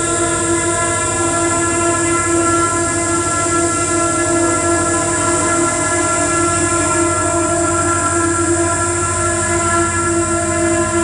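Live experimental electronic music played through a small mixer: a dense, steady drone of several held tones layered over hiss, with a low tone coming in near the end.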